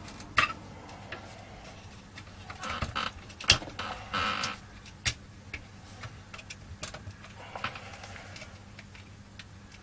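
Scattered clicks and knocks, with a few short rubbing noises, as a sheet-metal shield around a CRT monitor's line output transformer is worked loose by hand; the loudest knock comes about three and a half seconds in.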